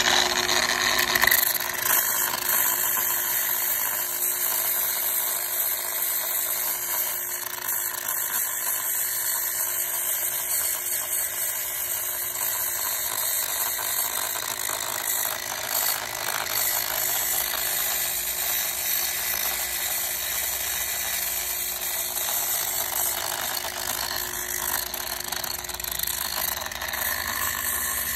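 Variable-speed angle grinder with a zirconia flap disc running steadily, grinding the hard white zinc hydroxide crust off a zinc boat anode: a continuous motor whine with a hissing rasp.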